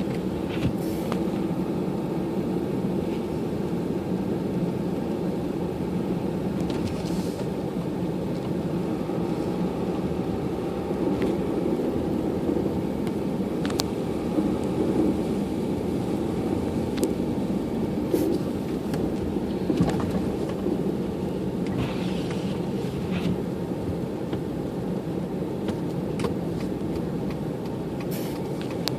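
A car being driven, with a steady drone of engine and road noise and scattered short clicks and knocks.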